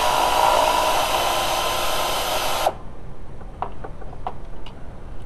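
Pneumatic air ratchet running steadily, spinning out a T30 Torx bolt, then stopping sharply almost three seconds in; a few light clicks follow.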